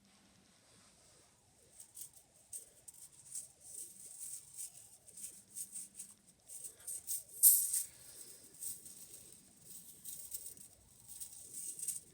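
Small loose pieces rattling inside a handheld fidget toy as it is shaken and tipped, in irregular patches, starting about a second and a half in and loudest about seven and a half seconds in.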